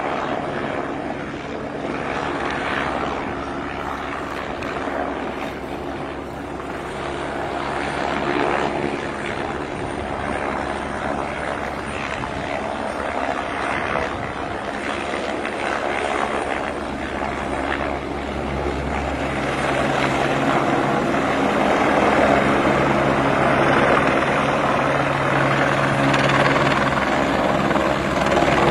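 Helicopter flying in and coming down to land, its rotor and turbine running steadily and growing louder over the last third as it nears.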